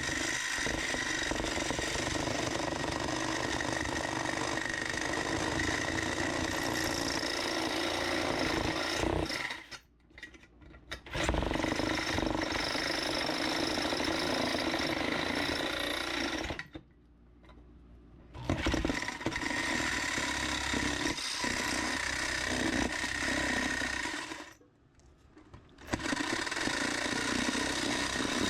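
Small handheld power tool grinding the sheet metal of an old lantern, running steadily in four long stretches with three short pauses, about ten, seventeen and twenty-five seconds in.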